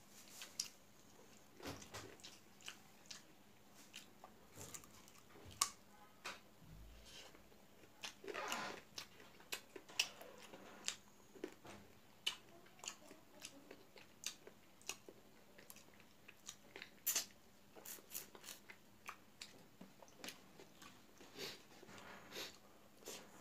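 Close-up chewing and mouth smacking of a person eating rice and chicken curry by hand: a long run of short, irregular wet smacks and crunches.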